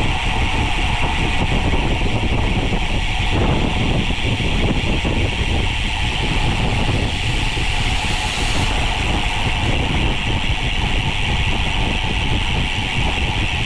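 Steady rumble of road and wind noise while riding a bicycle, with a brief extra hiss about eight seconds in.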